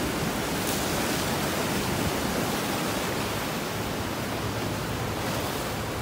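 Sea surf washing and churning against a rocky seawall: a steady, even rushing noise.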